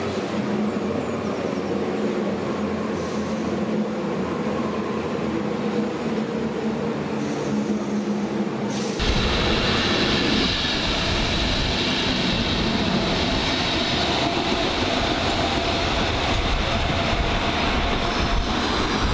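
Hamburg S-Bahn class 472 electric train running on curved track toward the listener, with a steady hum. About nine seconds in the sound cuts to white Intercity coaches passing close alongside a platform: a louder, steady rumble of rolling stock.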